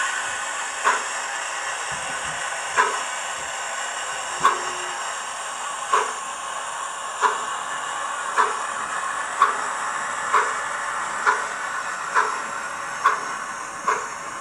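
Bachmann 9F model steam locomotive's Zimo sound decoder playing steam sound through a small speaker: a steady hiss with slow exhaust chuffs that quicken steadily as the loco gathers speed.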